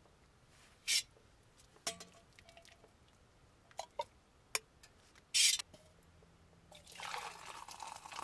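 Metal ladle clinking several times against a metal camping pot and cup as soup is served, followed near the end by soup splashing and dripping back into the pot.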